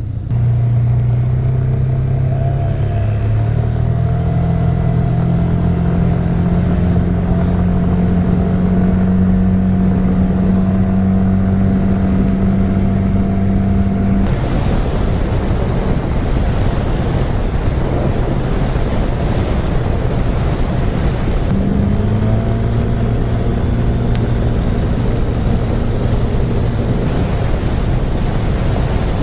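Yamaha N-Max 125 scooter's single-cylinder engine pulling away and cruising, its pitch climbing over the first few seconds and then holding steady. For several seconds in the middle a loud rush of wind on the microphone covers it. The engine then rises in pitch again about two-thirds of the way through.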